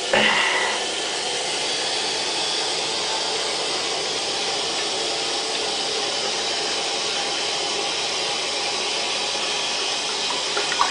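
Water running in a toilet with a steady hiss, after a brief louder burst at the start.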